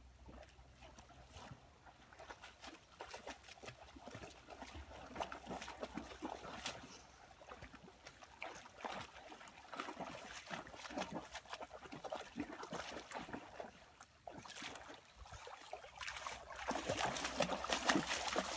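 German Shepherd dog wading through shallow water, a run of irregular splashes and sloshes that grow louder in the last couple of seconds as it comes close.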